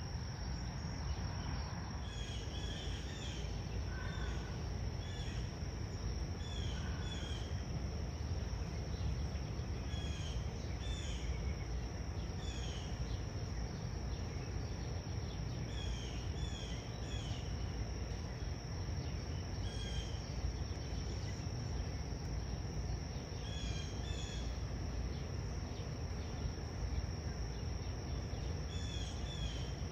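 Outdoor ambience: a steady high insect drone, typical of crickets, with short bird chirps coming in little groups every second or two, over a constant low rumble.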